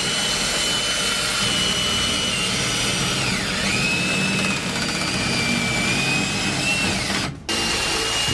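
Cordless drill drilling into the metal lock cylinder of a soda vending machine with a thin bit: a steady motor whine that dips in pitch a little past three seconds in, breaks off briefly about seven seconds in, then starts again.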